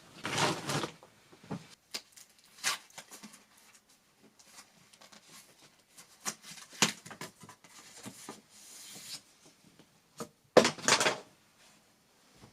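Household handling noises: irregular rustles, light clicks and knocks as objects are moved and set down, with two louder rustling bursts, one near the start and one near the end.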